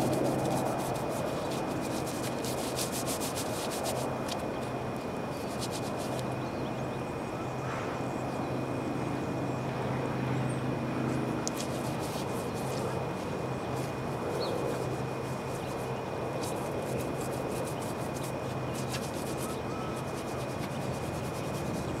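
A steady low machine hum with a thin high whine, under irregular rubbing and scraping from hand work on the roof surface.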